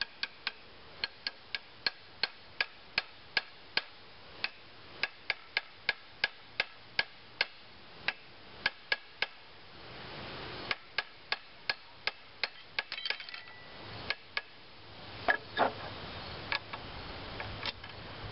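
Hammer lightly tapping a new ball joint into the steel lower control arm of a 1997 Pontiac Grand Am, seating it in its holes. The taps come about three a second, each a short metallic tick with a brief ring. Past the middle they stop for a moment, followed by handling noise and a couple of louder knocks.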